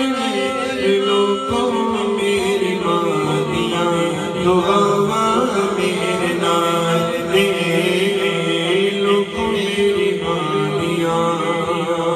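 A man sings a Punjabi devotional naat into a handheld microphone, his voice unaccompanied by instruments and carried in long held notes.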